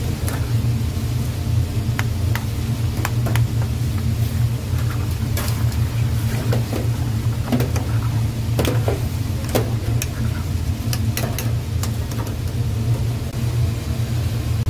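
A metal ladle knocking and scraping against a pan as tteokbokki in sauce is stirred, a dozen or so scattered clicks that stop shortly before the end. A steady low rumble of kitchen equipment runs underneath throughout.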